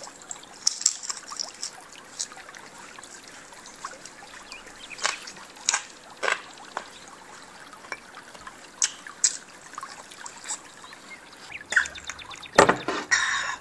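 Wet mouth sounds of eating steamed chicken feet: scattered lip smacks, sucking and chewing clicks, with a louder cluster of wet smacking near the end.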